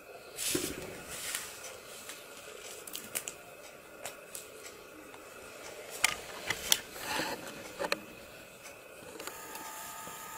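Ragdoll cat batting and biting at a feather wand toy: scattered sharp clicks and taps with light rustling, the loudest cluster of clicks about six to eight seconds in. Near the end a faint steady ringing tone comes in.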